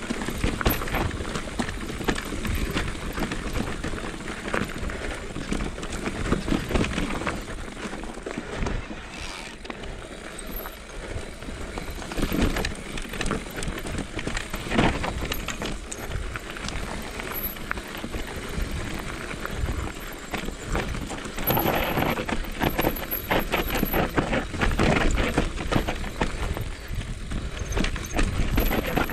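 Mountain bike riding down a rocky dirt trail: tyres crunching over dirt and loose stones, the bike rattling and knocking irregularly over bumps, with a steady low rumble of wind on the microphone.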